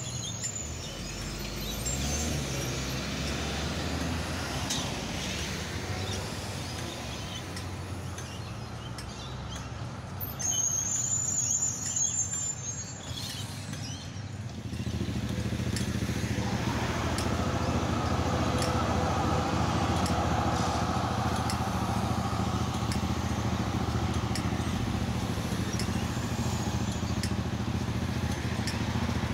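Melbourne B2-class tram approaching and passing close by, louder for a few seconds around the middle with a high whine. Then steady street traffic, with car engines and tyres at an intersection.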